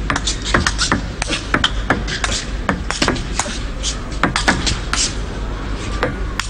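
Table tennis rally: a celluloid ball struck back and forth by rubber-faced bats and bouncing on the table, heard as a quick, irregular series of sharp clicks, a few each second.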